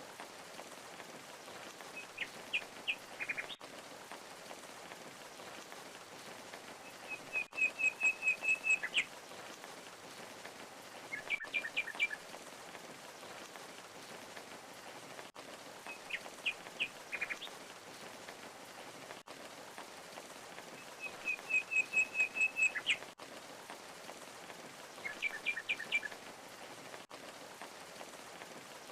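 Steady rush of falling water with a bird calling over it at intervals: short groups of sharp chirps and a fast trill of about a dozen rapid, even notes. The same sequence of calls comes round again about every 14 seconds.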